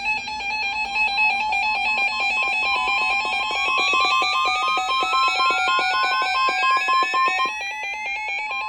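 Electronic Emergency Alert System alarm tones: a rapid, warbling pattern of high beeps stepping between pitches over a steady pulsing beep, with one tone that rises steadily in pitch from about three seconds in. The tones signal a severe thunderstorm warning.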